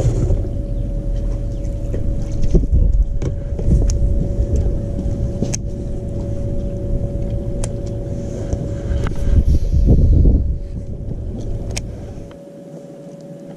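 Wind rumbling on the microphone, unevenly, with a steady hum underneath and a few sharp clicks. The rumble cuts out abruptly about a second before the end.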